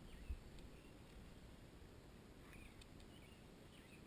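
Near silence, with faint, scattered bird chirps and a single low thump about a third of a second in.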